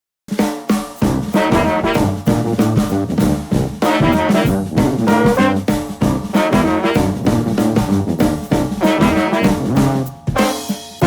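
Upbeat jazzy music with brass and a drum kit.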